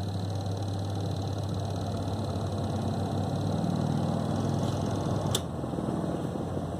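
Spin motor of an LG 6.5 kg semi-automatic washing machine running with a steady low hum, running normally after the repair. A short click about five seconds in.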